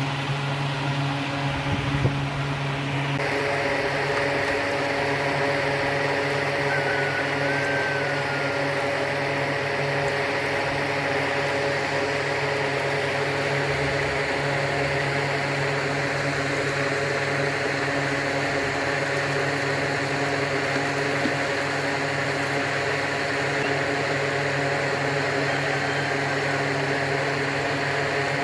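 Steady machine hum with several held tones over an even hiss, its sound changing slightly about three seconds in.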